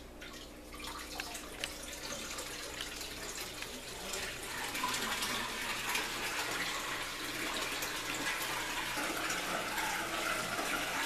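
Water running and splashing steadily into the fish tub of a home aquaponics system, from the grow bed's PVC drain pipe. The rush grows louder about four seconds in, with a few small clicks early on.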